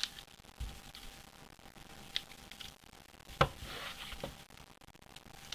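Handling noise from a comic-book shipment being unpacked: scattered light clicks and a brief rustle, with one sharp tap about three and a half seconds in.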